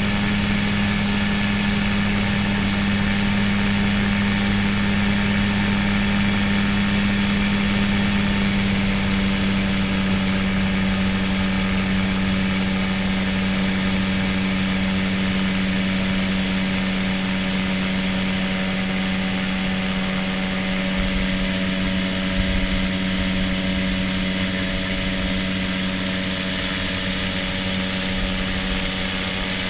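Gyroplane's engine and propeller droning steadily in cruise flight, holding one even pitch throughout.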